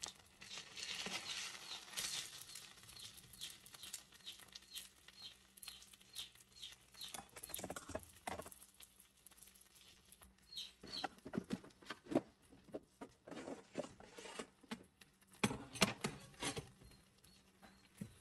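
Pork chops searing in hot oil in a cast-iron skillet: steady sizzling with irregular pops and crackles of spattering fat, busier past the middle.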